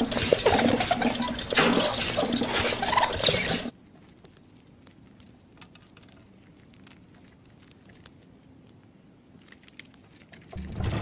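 A hamster's exercise wheel spinning fast with a rattling whir, cutting off abruptly about three and a half seconds in to a quiet stretch of faint scattered ticks and a thin high tone. A heavy thump starts near the end.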